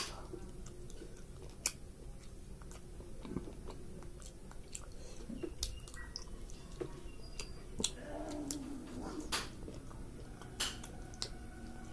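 Close-up chewing and mouth sounds of someone eating rice and curry, with scattered sharp clicks and smacks.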